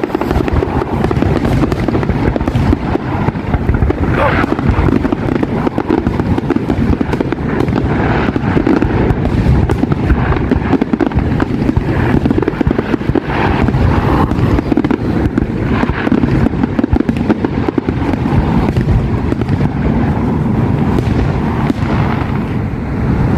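Aerial fireworks display bursting in a rapid, near-continuous run of bangs.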